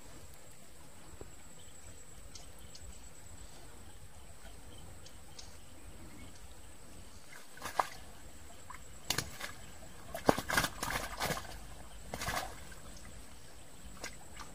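Thin plastic bag crinkling in a series of short, sharp rustles, loudest near the end, as a freshly caught tilapia is put into it. Under it, a faint steady trickle of shallow stream water.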